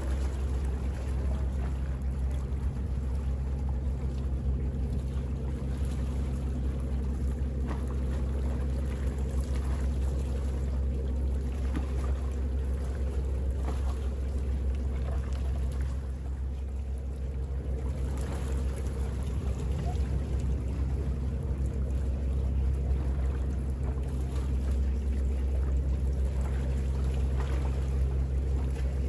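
Small bay waves lapping and splashing irregularly against the shore, over a steady low hum.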